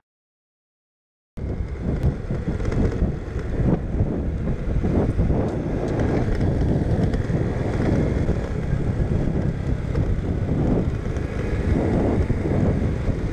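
About a second in, steady wind buffeting on the microphone begins as a Honda ANF 125 Innova rides along, with the bike's small single-cylinder four-stroke engine running under it.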